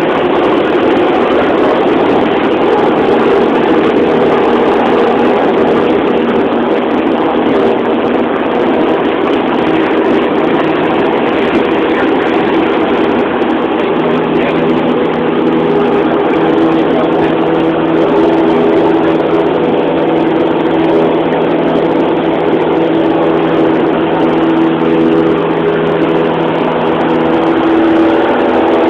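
Light aircraft's piston engine and propeller running at takeoff power, heard from inside the cabin: a loud, steady drone with a low hum that strengthens about halfway through.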